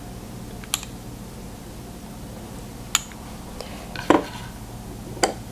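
A metal spoon clinking lightly against a small glass dish and a bowl as sour cream is spooned out: four short clinks spread a second or more apart, one of them ringing briefly, over a faint steady hum.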